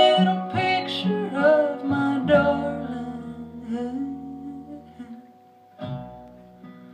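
Live acoustic folk song: a sung note trails off over the first two seconds. Plucked acoustic guitar notes and a low bass line then ring and fade almost to quiet, before a new plucked chord comes in about six seconds in.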